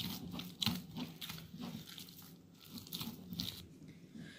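Hand kneading soft, oiled bread dough in a bowl: irregular sticky presses and soft slaps of the dough, quieter in the second half.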